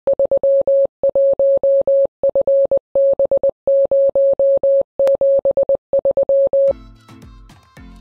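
Morse code keyed as a steady mid-pitched tone in dots and dashes. There are seven character groups, spelling out the call sign 31FB073. Near the end it gives way to quieter electronic music with a regular beat.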